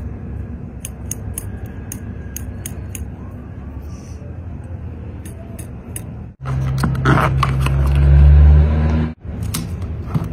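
Pieces of spot-welded steel razor blade clicking and scraping as they are handled and flexed: a dozen or so short, sharp metallic clicks over a steady hiss. After a cut, a louder low hum takes over for about three seconds.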